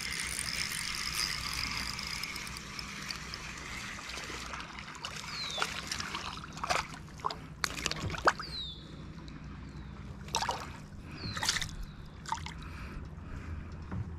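Lake water splashing, sloshing and dripping beside a small boat as a hand swishes through the water and a released bass kicks away. There are several short splashes and drips through the second half, after a steady hiss in the first few seconds.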